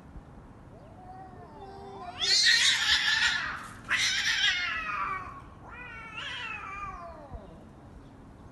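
Two domestic cats fighting: a low yowl rising about a second in, then two loud bursts of harsh screeching as they grapple, followed by a falling yowl.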